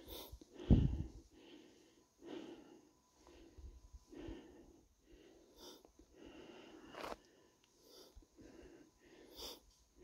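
A hiker's breathing, heard close to the microphone as a soft breath every second or so, with one low thump about a second in.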